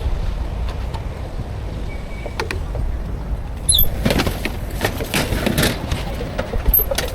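Roadside street ambience: a steady low rumble of passing traffic, with a burst of clattering and scraping about four seconds in that lasts around two seconds.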